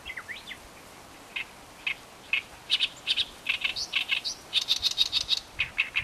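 A small songbird chirping: a couple of quick rising notes at the start, then separate short high chirps that speed up into a fast, busy run of chirps over the second half.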